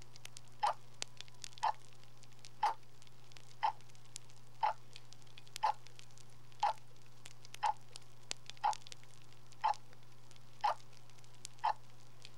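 A clock ticking steadily about once a second over a constant low hum.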